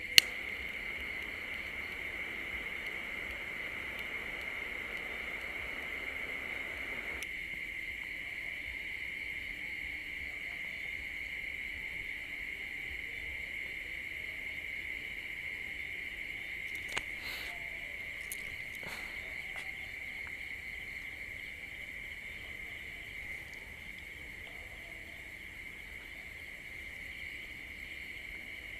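Night insects, crickets, chirring as one steady, continuous high-pitched drone, with a few faint clicks a little past the middle.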